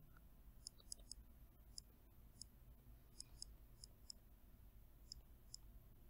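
Faint ticks of a stylus tapping on a pen tablet while words are handwritten: about a dozen light, sharp clicks at irregular spacing against near silence.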